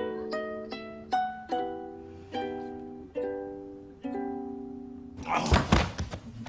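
Background music: a gentle plucked-string melody, each note struck and dying away. About five seconds in, a loud rustling, clattering noise lasts about a second, and the music stops.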